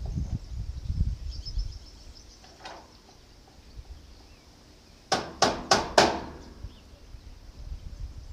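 A hammer striking steel four times in quick succession, about a third of a second apart, a little past the middle. Low rumbling comes before it, near the start.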